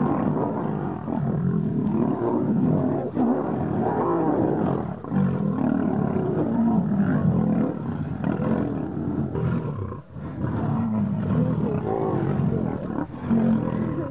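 Lions fighting at close quarters, snarling and growling almost without a break, with a short lull about ten seconds in.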